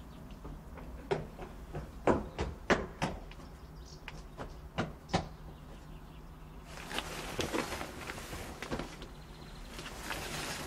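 Footsteps on stone paving: about eight sharp, irregular steps in the first five seconds, then a softer rustling and scuffing.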